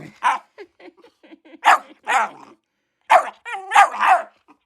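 Young dog barking in a series of about six short, sharp barks.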